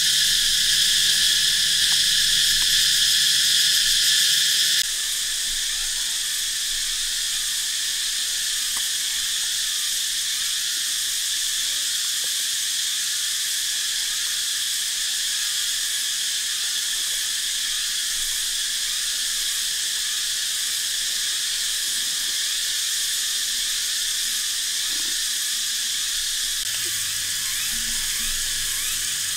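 Dense, steady chorus of forest insects, a shrill high drone. It drops a step to a slightly quieter chorus about five seconds in.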